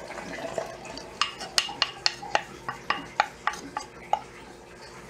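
Wooden spoon scraping and knocking against the inside of a ceramic mixing bowl as wet batter is scraped out into a bowl of flour. A soft pour first, then about a dozen sharp knocks over three seconds, roughly four a second.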